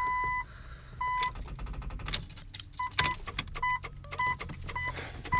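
A 1998 Jeep Cherokee XJ with a drained battery, keys at the ignition: its warning chime starts with one held beep, then stutters in short, broken beeps among rapid clicking and key jingling. The battery is too dead to run the chime properly.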